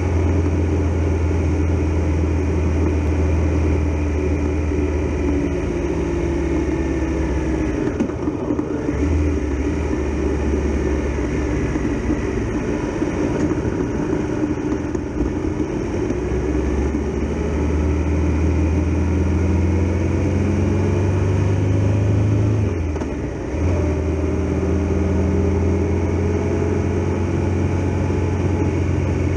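Triumph Tiger Explorer XRx motorcycle's three-cylinder engine running on the move, its pitch rising and falling with the throttle. It briefly drops away twice, once about a third of the way in and again past three quarters, over a steady haze of road and wind noise.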